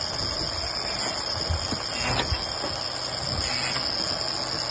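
Steady rushing noise of a racing sailboat under way at sea, water running along the hull, with a steady high whine over it and a faint knock about two seconds in.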